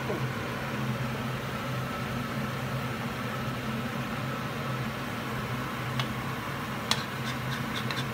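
Batter-coated shrimp deep-frying in hot oil, a steady sizzle over a low hum, with a few sharp pops of spattering oil in the last couple of seconds.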